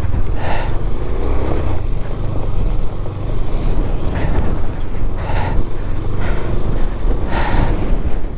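Single-cylinder KTM 390 motorcycle engine running under load on a rough, unpaved mountain track, a steady low rumble. Irregular hissy bursts of wind noise hit the microphone.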